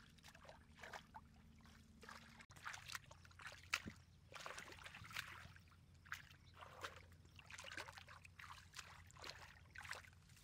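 Faint, irregular sloshing and small splashes as hands grope through shallow muddy water in a drained rice-field pool, feeling for fish.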